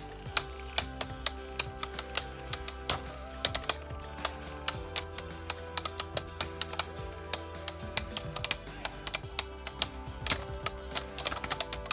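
Two 3D-printed Beyblade spinning tops clashing in a stadium, several sharp plastic clacks a second at an irregular rhythm, over background music with held notes.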